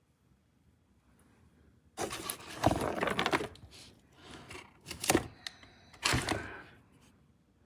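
Rustling handling noise with a few sharp knocks, starting about two seconds in and dying away near the end.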